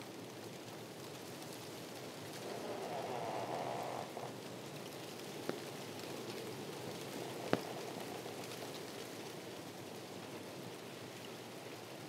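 Wind blowing through a palm tree's fronds, a steady hiss that swells in a gust a few seconds in. A flag next to the tree gives two sharp clacks about two seconds apart, the second louder.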